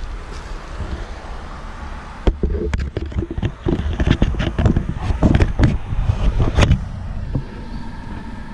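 Handling noise from a pole-mounted inspection camera being pushed into a wooden nest box: a quick run of knocks, clicks and scrapes from about two seconds in, over a low rumble. The knocking stops shortly before the end, leaving a faint steady hum.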